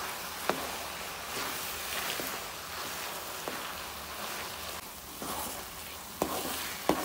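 Grated carrots and khoya sizzling as they fry in oil and are stirred with a spatula in a steel pot, with a few sharp knocks of the spatula against the pot.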